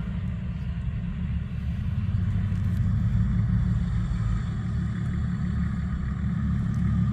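Off-road 4x4 vehicle driving, its engine and drive noise a steady low rumble.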